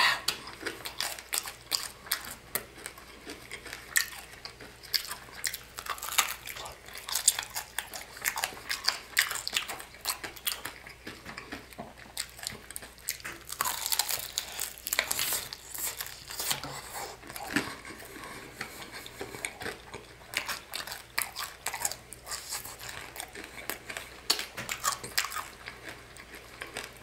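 Close biting, crunching and chewing of fried chicken drumsticks coated in hard tanghulu sugar candy: the candy shell cracks in many sharp, irregular crackles, thickest about halfway through.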